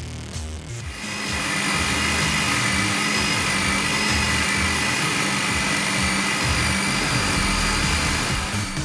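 Countertop blender motor starting about a second in and running steadily at full speed, with a constant whine over the churning, as it blends oats and liquid into a shake.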